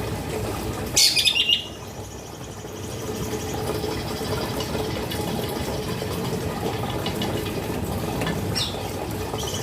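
Female cucak kinoy, a caged bulbul, giving a short, loud burst of rapid chattering notes about a second in, then a brief gliding call near the end, over a steady background hiss.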